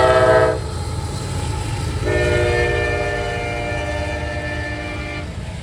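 Freight locomotive's chord air horn sounding a short blast, then about two seconds later a long blast lasting about three seconds, over the low rumble of the diesel locomotive.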